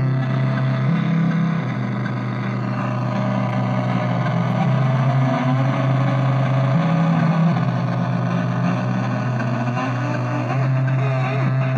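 Dronebird DIY drone synthesizer playing a continuous low drone that steps between a few pitches every second or two. Wavering, warbling higher tones ride over it in the second half.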